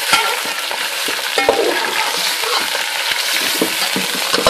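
Raw mutton pieces and bones sizzling in hot oil with onions in a large metal pot. They are being stirred with a perforated metal spoon, which scrapes and knocks against the pot a few times.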